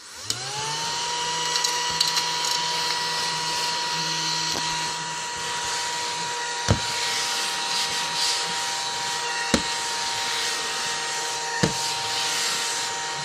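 Mini battery-powered desk vacuum switched on, its small motor whining up to speed within half a second, then running steadily with a high whine and airy hiss as it sucks up eraser crumbs. Three sharp knocks come in the second half.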